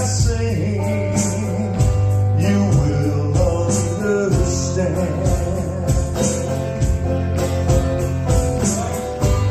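Live band playing a rock/country song: electric guitar and steady bass under a driving drum beat with regular cymbal hits, with some singing.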